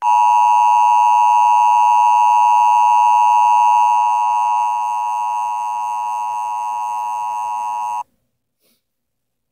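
Emergency Alert System attention signal: two steady tones sounded together (853 and 960 Hz), held for about eight seconds, a little quieter from about halfway through, then cutting off suddenly.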